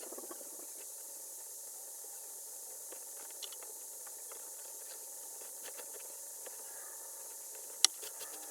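Faint scattered ticks and scrapes of hands handling a leather baseball glove over a steady high hiss, with one sharp click near the end.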